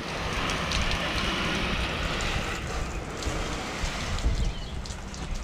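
Stihl RB400 gas pressure washer spraying water through a long extension wand onto a house's soffit: a steady hiss of spray over the low rumble of the engine, the hiss strongest in the first half.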